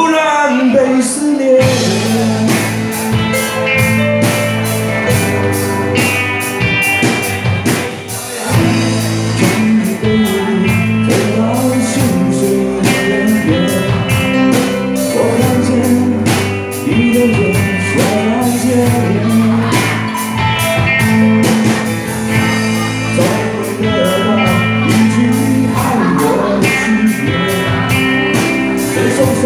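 Live band music with a steady drum beat, bass and electric guitar, and a voice singing over it.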